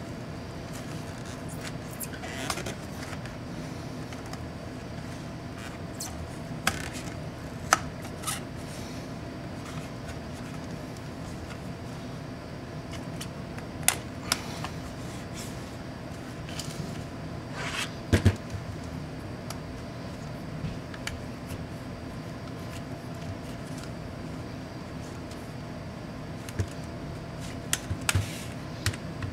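Scattered sharp clicks, ticks and short scrapes of a laptop LCD panel being handled and pried at its edge with a plastic pick, over a steady low hum. The loudest is a quick cluster of clicks about two thirds of the way through.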